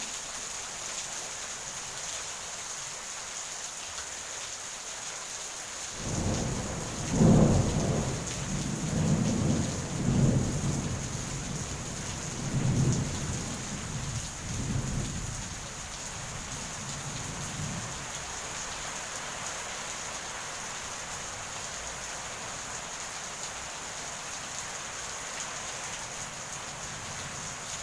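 Steady heavy rain with a roll of thunder: about six seconds in, a deep rumble starts, swells in several surges and dies away over about ten seconds, while the rain hiss goes on evenly.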